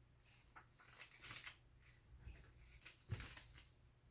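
Paper rustling and soft handling noises as journal pieces are moved about on the craft table, with a few brief louder rustles about a second in and again around three seconds in.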